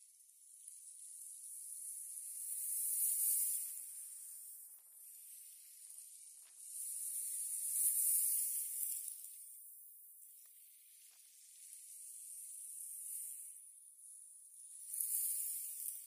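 Small sea waves washing up onto a pebble beach. The wash is high and thin with no low rumble, swelling and fading three times as each wave runs in and draws back.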